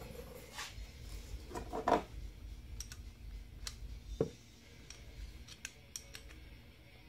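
Light metallic clicks and taps from a motorcycle brake caliper and its loosened brake line fitting being handled while the old brake fluid drains, with a cluster of clicks about two seconds in and a duller knock about four seconds in.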